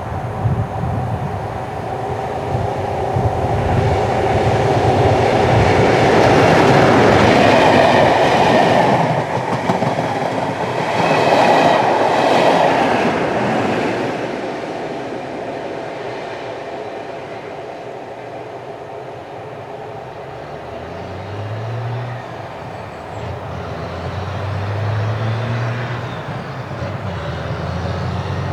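A train top-and-tailed by two Class 43 HST power cars passes: engine sound and wheel clatter build to two peaks about seven and twelve seconds in, one for each power car, then die away. A low hum swells twice near the end.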